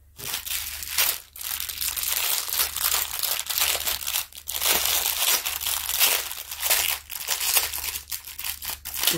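Plastic crinkling and rustling as it is handled by hand, in a near-continuous stream with a few short breaks.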